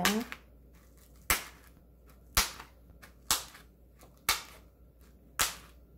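Fork tines punching through plastic wrap stretched tight over an earthenware pot: five sharp pops about a second apart. These are air holes that keep the wrap from puffing up in the microwave.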